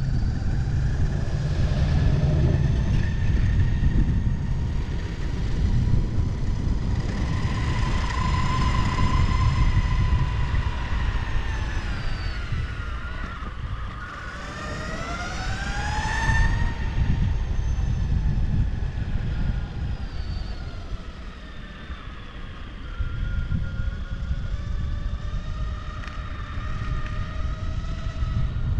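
Skateboard wheels rolling over pavement, a steady low rumble that eases off briefly a couple of times, with faint tones that drift and, about halfway through, dip and rise again.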